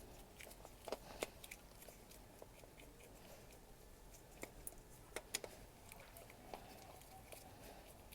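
Faint, scattered clicks and ticks of a Phillips screwdriver working the holding screws out of a uPVC door's multipoint lock mechanism.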